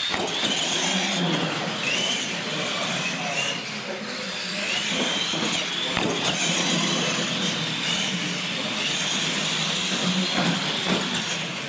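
Radio-controlled monster trucks racing on a concrete floor, their motors and drivetrains giving a high-pitched whine that rises and falls with the throttle.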